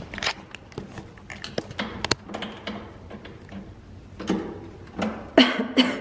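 Scattered clicks and knocks from handling a hotel room door's lock and handle while trying to get it open, with louder clattering about four seconds in and twice more near the end.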